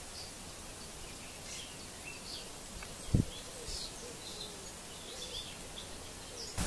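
Faint, short bird chirps scattered over a steady outdoor hiss, with a single dull low thump a little over three seconds in.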